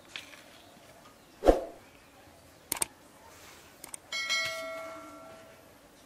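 Dishware being handled during a meal: a dull knock, a couple of sharp clicks, then a metal dish struck, ringing like a small bell and fading over about a second and a half.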